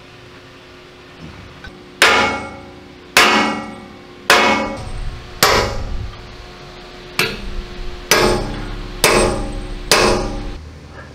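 Hammer striking a steel pin punch against the rust-fused handle of a tank's armoured vision block: eight sharp, ringing metal blows, roughly one a second, as the seized part is driven out.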